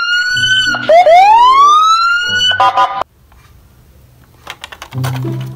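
Ambulance's electronic siren wailing in slow rising sweeps, about one and a half seconds each. It ends in a short burst of steady tones and cuts off suddenly about three seconds in.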